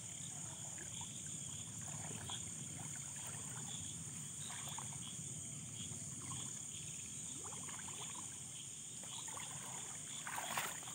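Faint water sloshing and dripping with small scattered splashes from wading in shallow water, over a steady high insect chirring, with a brief louder splash near the end.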